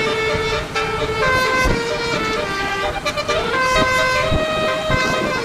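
Basuri-type telolet bus horn playing a melody, a run of held horn notes that step up and down in pitch.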